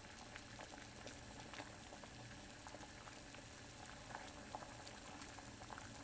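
Water boiling in a stainless steel saucepan: a faint, steady bubbling with many small scattered pops.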